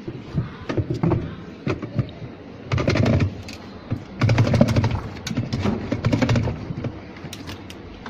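Plastic agitator of a top-loading washing machine being seated on its shaft and twisted by hand: scattered clicks and knocks, then three bursts of rubbing and clicking as it turns on the freed shaft.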